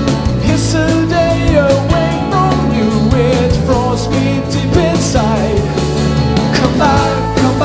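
Live rock band playing a song on drum kit, bass and electric and acoustic guitars, with a lead voice singing the melody.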